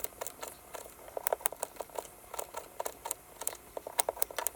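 Kitchen knife slicing lemons, an irregular run of short taps several times a second as the blade cuts through and strikes the board.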